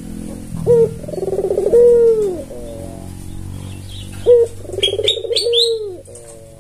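Albino white Barbary dove (puter) cooing its typical call twice: a short rising note, then a long rolled coo that falls away at the end. A few short high chirps come in around the second call, over a low steady hum.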